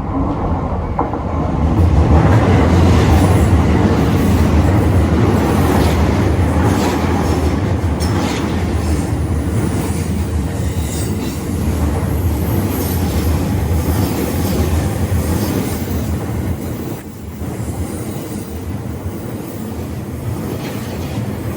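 Train passing close by over a level crossing, steel wheels running on the rails, loud from about two seconds in and easing off after about seventeen seconds.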